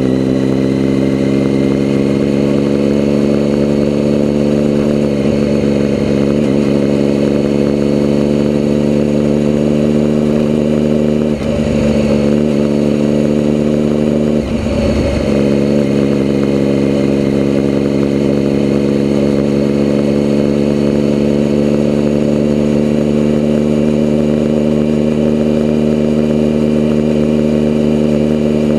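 Vehicle engine running steadily at near-constant revs, its note holding one pitch, with two brief disturbances about 11 and 14 seconds in.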